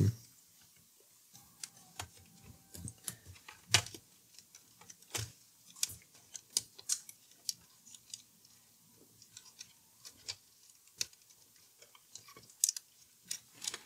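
Scattered light clicks and taps, irregularly spaced, as fingers shift a loosened circuit board and its wiring against a turntable's plastic chassis; the sharpest click comes about four seconds in.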